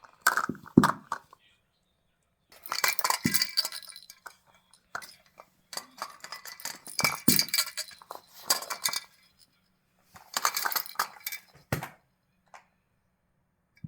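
Clinking, like a dish or bowl being handled, in three clusters of sharp clicks with a dull knock in each.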